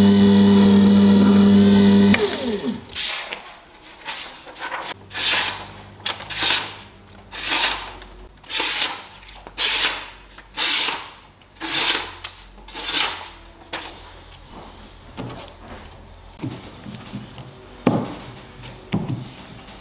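A wet-stone sharpener's motor hums steadily, then is switched off about two seconds in and winds down. After that, a steel sword blade is drawn by hand in a series of regular rasping strokes, about one a second. Near the end the strokes become shorter and sharper.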